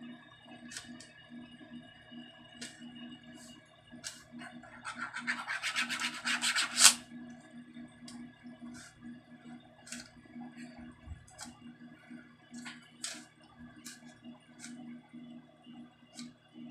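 Plastic stylus tapping and scratching on a child's magnetic drawing board: scattered light taps, and a few seconds of rapid scribbling that grows louder and ends in a sharp click about seven seconds in.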